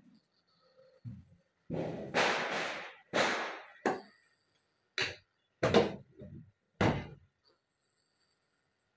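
Dying kitten's agonal gasps: a string of sudden, noisy breaths at irregular intervals, some short and sharp, a couple drawn out over about a second.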